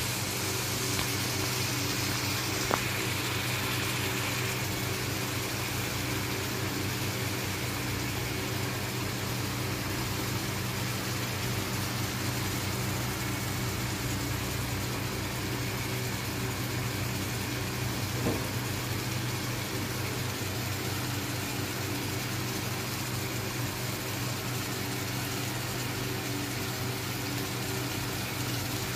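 Steady hum of a small motor, several low tones held level, with a sharp click about three seconds in.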